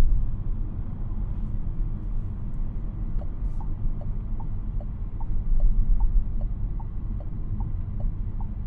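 Low, steady road and drivetrain rumble inside the cabin of a moving Renault Captur E-Tech Full Hybrid. From about three seconds in, a turn-signal indicator ticks, alternating a higher and a lower click at about two and a half clicks a second.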